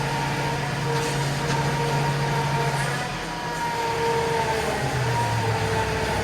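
John Deere 2038R compact tractor's three-cylinder diesel running steadily, with a steady high whine above the engine note. The engine note drops a little about halfway through.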